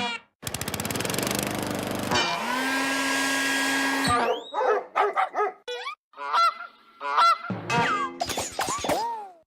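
A quick sequence of cartoon sound effects: a fast rattling buzz, then a long steady horn-like honk, then a run of short chirping, sliding whistles and clicks.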